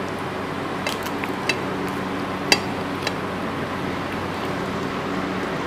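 Quiet eating by hand from plates: a few small clicks and taps, the sharpest about two and a half seconds in, over a steady low hum.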